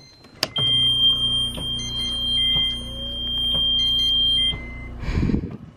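A bedside electronic alarm sounds one steady high tone for about four seconds over a machine's low hum, with faint clicks about once a second. The alarm is the kind of night-time disturbance that interrupts sleep. A short burst of noise follows near the end.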